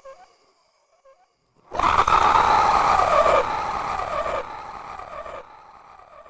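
A sudden, loud, harsh roar-like vocal sound effect about two seconds in. Its falling tail is repeated by an echo roughly once a second, each repeat quieter than the last. Before it, the last faint echoes of a previous sound die away.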